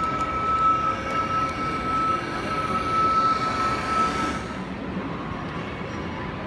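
Model train running close by on its layout track: a steady high whine with rolling hiss that stops about four and a half seconds in.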